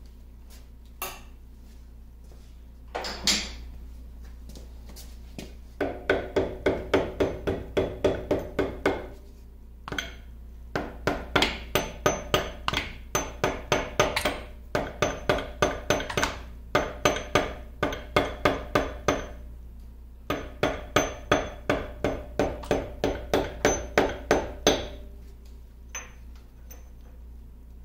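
Mallet blows on the cast-iron change-gear end of a 1950 LeBlond Regal lathe. After a few single strikes come several runs of rapid blows, about four a second, each blow with a short metallic ring, as a part of the gear train is driven loose for removal.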